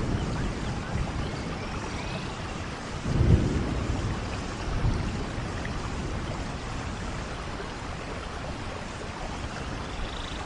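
Steady soft rain falling, a continuous hiss, with a low rumble swelling about three seconds in and a smaller one about a second later.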